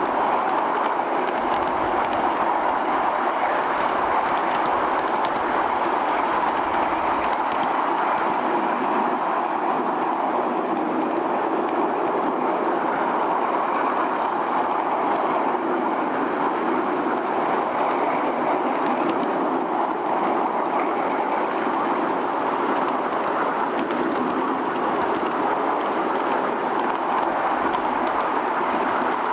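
Ride-on live-steam miniature train running along its track, heard from aboard the train: a steady rolling noise with no whistle.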